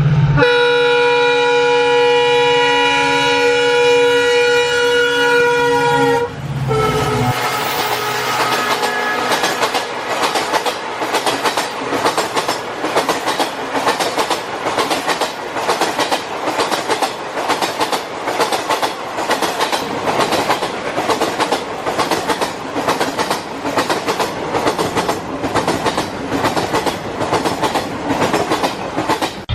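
Train horn held in one long chord for about six seconds, dropping in pitch as it ends. It is followed by the steady rhythmic clickety-clack of train wheels running over rail joints.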